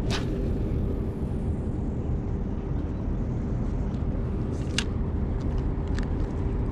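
Steady low rumble with a constant droning hum, with a sharp swish right at the start as a spinning rod is cast and a few faint clicks later on.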